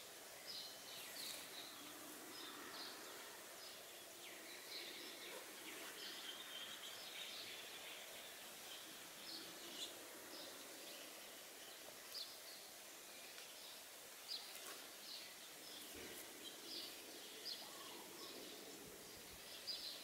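Faint outdoor ambience: small birds chirping, many short high chirps over a low, steady background hiss.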